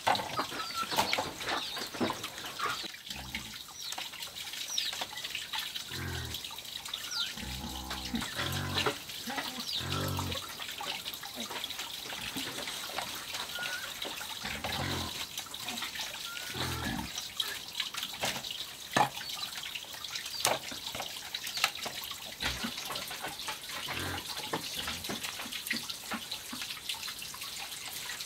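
Knife cutting through raw pork belly and ribs, with repeated short clicks and knocks as the blade works through the meat and taps the board. Short bird chirps and a steady background hiss run underneath.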